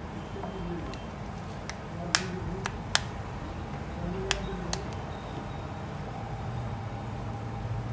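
Six or so sharp plastic clicks, spaced unevenly over about three seconds, as a replacement phone display panel is pressed into the phone's frame, over a steady low hum.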